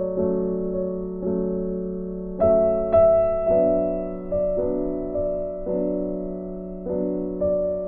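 Slow background piano music: soft chords struck about once a second and left to ring and fade over a held low note.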